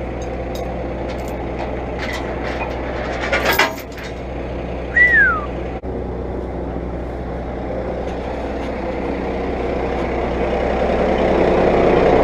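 Heavy vehicle engine running steadily, with a short burst of hiss about three and a half seconds in and a brief falling squeal a second later. The engine grows louder near the end.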